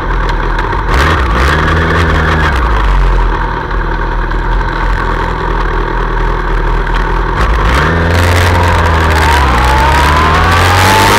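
2003 Yamaha R1's inline-four engine idling with a couple of short throttle blips, then pulling away, its pitch rising steadily through the last few seconds. Wind noise builds on top near the end.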